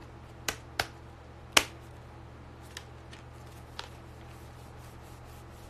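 A few sharp taps and clicks at irregular intervals, the loudest about a second and a half in, over a steady low hum.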